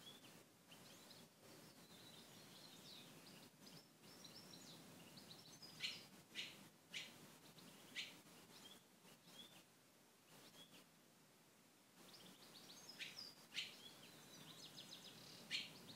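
Faint chirping and twittering of small birds, in short scattered calls that come in two clusters, over near silence.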